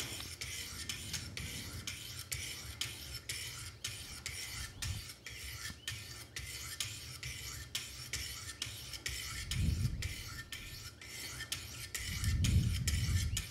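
Wicked Edge 200-grit diamond sharpening stones stroked alternately along both sides of a clamped knife edge: a steady run of short, raspy scrapes, about three a second, in the low-grit stage of reprofiling the edge. A dull low thump comes about ten seconds in, and a longer one near the end.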